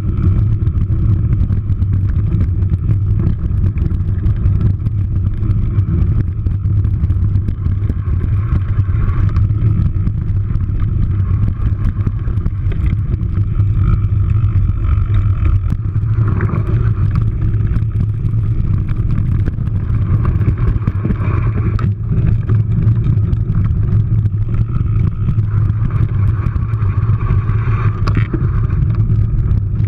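Steady low rumble of wind on an action camera's microphone, mixed with the noise of mountain bike tyres rolling fast over a dirt singletrack trail.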